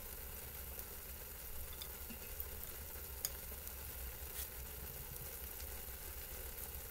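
Noodles simmering in a little water in a pan, giving a soft, steady sizzle over a low hum. A few faint ticks and rustles come as a sauce packet is handled.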